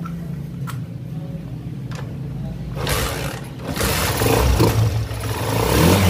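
Honda TMX single-cylinder four-stroke motorcycle engine running with its flywheel cover off. It is revved twice, briefly about three seconds in and then longer and louder near the end. It now runs and revs after its contact-point ignition was adjusted.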